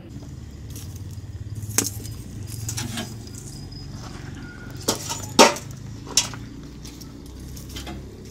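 Wood fire burning in a round steel stove: a low steady rumble with a few sharp cracks, the loudest about five and a half seconds in.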